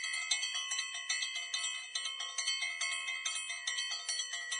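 Intro music of bright, ringing bell-like chime tones, struck in a quick even pattern of about four notes a second over a sustained shimmer.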